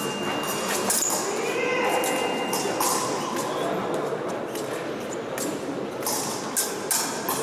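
Fencing bout in progress on an épée piste: irregular sharp stamps and clicks of fencers' footwork and blades, over a murmur of voices in a large hall.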